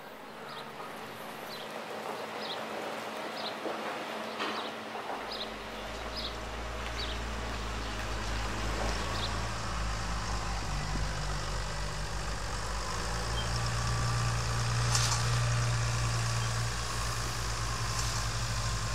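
Tractor diesel engine running steadily, coming in about five seconds in and growing louder, with a short knock near fifteen seconds. Before the engine there are only faint ticks about once a second.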